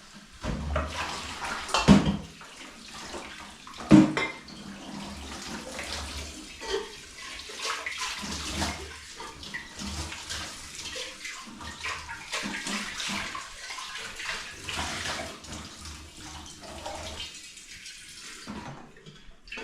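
Tap water running and splashing into a sink, uneven throughout, with two sharp knocks about two and four seconds in.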